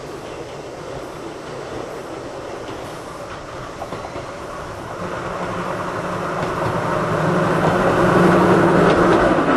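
Hakone Tozan Railway old-type electric cars 103 and 107 approaching, growing steadily louder from about halfway, with the hum of their nose-suspended traction motors over the rumble of the wheels.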